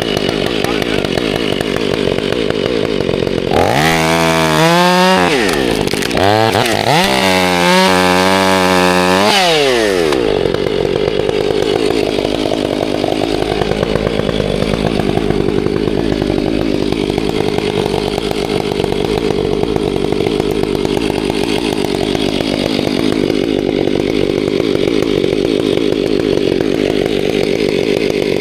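Chainsaw running, revved up and down several times between about four and ten seconds in, then running on steadily.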